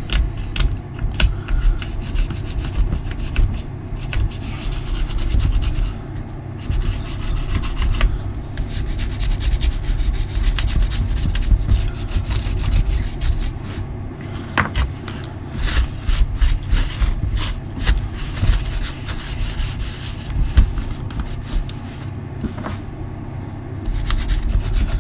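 A toothbrush scrubbing caked mud off the parts of a nitro RC buggy: steady back-and-forth rubbing with many small clicks and knocks of the parts being handled.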